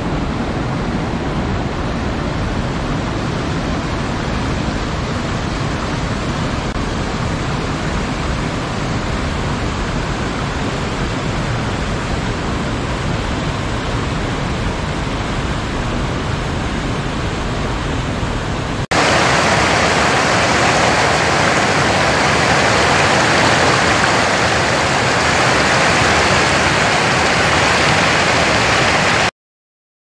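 Rushing water of a mountain stream and cascade, a steady rush. About two-thirds of the way through it cuts to a louder, brighter rush of falling water, which stops abruptly just before the end.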